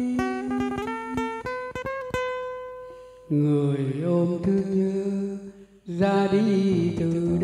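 A man singing a slow Vietnamese ballad to acoustic guitar accompaniment. The guitar plays a rising run of single plucked notes that rings out, then the voice comes back in about three seconds in and carries on over the guitar.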